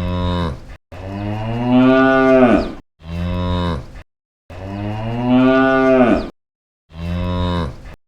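A cow mooing five times, short and long calls in turn, the two long ones rising and then falling in pitch; each call stops abruptly into silence, like edited-in clips.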